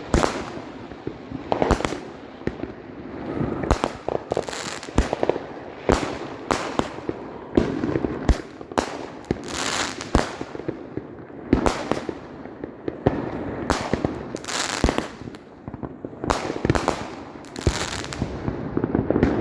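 Fireworks going off in quick succession: sharp bangs and short bursts of crackling, one or two a second, with no pause.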